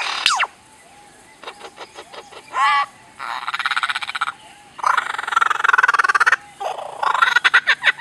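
Lyrebird singing a run of mimicked sounds: a quick series of clicks and a brief warble, then long buzzy rattling trills that start and stop with short pauses between them.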